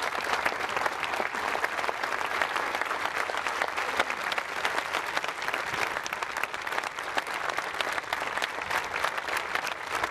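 Large crowd applauding: dense, steady clapping with no let-up.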